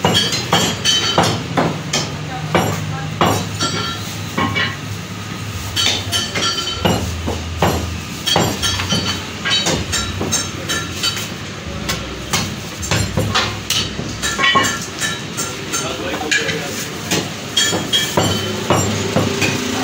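Butcher's cleaver chopping lamb on a wooden chopping block: many sharp chops at an uneven pace, over a steady low hum.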